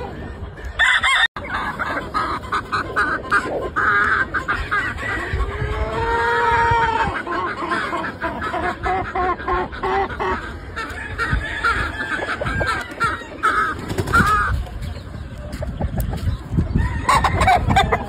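Many gamefowl roosters crowing and clucking at once, their calls overlapping, with one long crow rising and falling about six seconds in.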